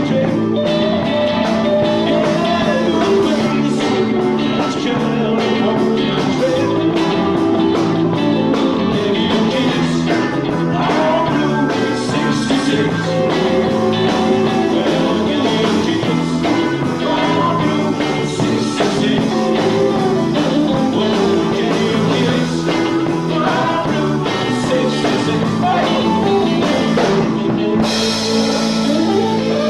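Guitar-led rock music playing steadily.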